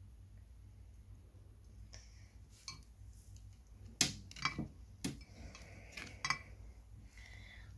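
Orange toy slime being stretched and squeezed in the hands, giving a handful of short, sharp clicks and pops, the loudest about halfway through.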